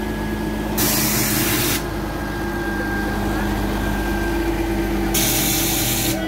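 Mobile crane truck's diesel engine running steadily, with two short bursts of hissing air, about a second in and again near the end.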